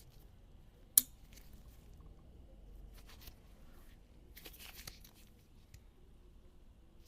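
A knife and its packaging being handled: one sharp click about a second in, a few lighter clicks, then a short rustle.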